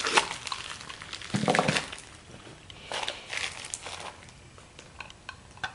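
Hands handling a small hard-plastic watertight survival-kit case as it is opened and its packed contents are pulled out: a few sharp plastic clicks at the very start, then scattered rustles and knocks about one and a half and three seconds in.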